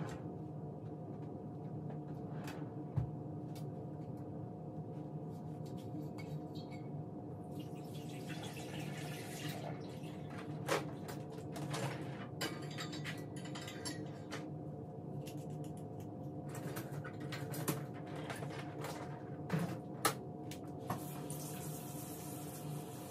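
Kitchen sink tap running in spells of a few seconds, turned on and off several times, with dishes and utensils clinking and knocking. A steady low hum runs underneath.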